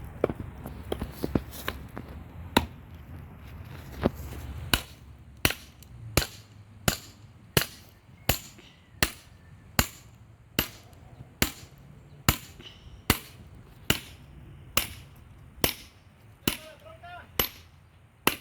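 Sledgehammer repeatedly striking the flat back of an axe to drive it into a log and split it: a few scattered blows, then a steady run of sharp strikes about every three-quarters of a second.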